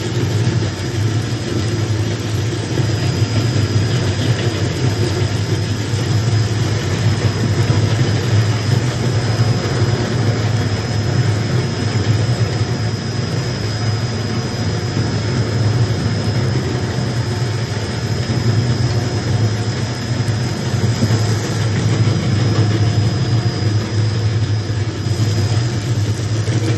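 Industrial plastic shredder running steadily while its cutter shafts chew through nylon fishing net: a constant low drone with a faint steady high whine over it.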